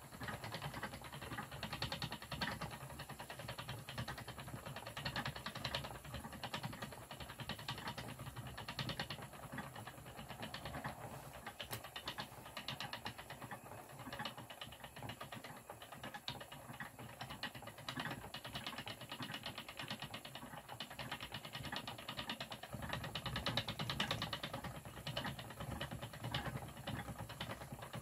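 Wooden treadle spinning wheel running steadily as yarn is plied: the treadle, drive wheel and flyer make a low, rhythmic mechanical clatter and whirr, a little louder near the end.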